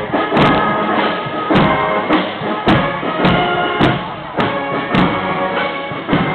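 Marching band playing a march: brass or wind instruments sustaining a tune over a steady drum beat, about two beats a second.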